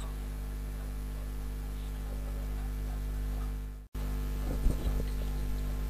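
Steady low electrical hum with faint hiss, cutting out completely for a split second just before four seconds in, where the recording is edited, then carrying on.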